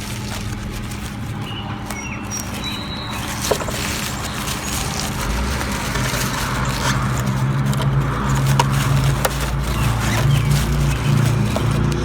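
A motor vehicle's engine running, a steady low hum that grows louder about five seconds in, with a few small clicks of handling.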